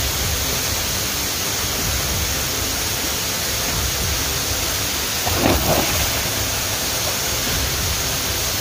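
Steady rushing of a waterfall, an even wash of water noise.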